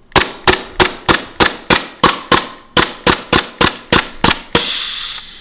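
Tokyo Marui Glock 17 gas blowback airsoft pistol firing a rapid string of about eighteen shots, roughly four a second, each a sharp snap of gas and slide cycling. A steady hiss takes over near the end.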